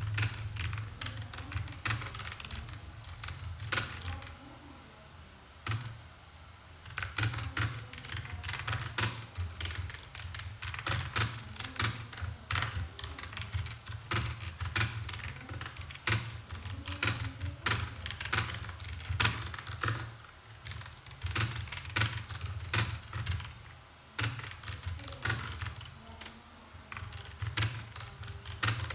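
Fast typing on a computer keyboard: a dense, uneven run of key clicks with heavier thunks mixed in, easing off briefly about five seconds in and again near 24 seconds.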